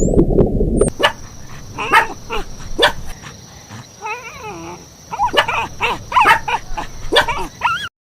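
Dog barking in short, separate barks, with a wavering whine about four seconds in. The barks come quicker near the end and cut off suddenly. A loud, even rushing noise fills the first second.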